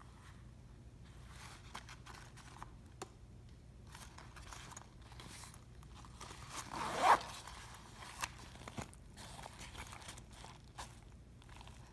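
Zipper of a Supreme waist bag being pulled open, one louder zip about halfway through, amid soft rustling of the bag's fabric and small clicks of the zipper pull being handled.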